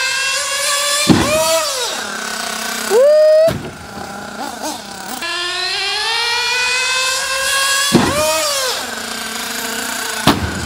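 Kyosho Inferno nitro RC buggy's small glow engine at full throttle, its whine climbing steadily in pitch and then falling away sharply about a second in. A short, very loud rising rev follows about three seconds in. Then comes a second long climb in pitch that drops off again near eight seconds.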